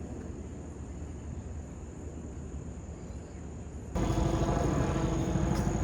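Steady low background rumble with no speech. About four seconds in it jumps louder and fuller, with a faint, steady high whine.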